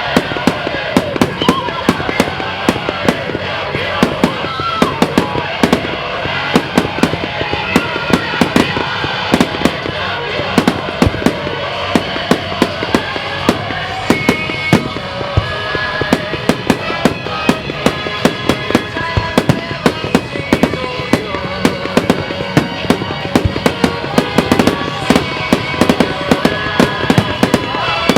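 Fireworks going off in quick succession, many sharp bangs and crackles a second, over music with held tones.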